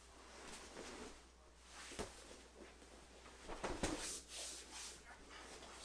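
Grappling on foam mats: jiu-jitsu gi fabric rustling and bodies shifting and scuffing, with a sharp knock about two seconds in and a cluster of scuffs near four seconds.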